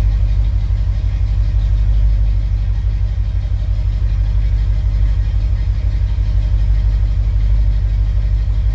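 Car engine running with road noise, a steady low rumble as the car is driven.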